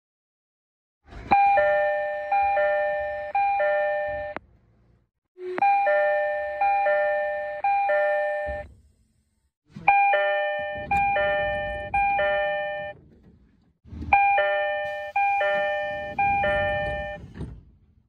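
Train door chimes sounding four times, each a run of four bell-like notes about 0.7 s apart. The first two come from a Tokyo Metro 18000 series car, and the last two from a JR 205 series 600-subseries train as its doors open and then close, with a low rumble under them.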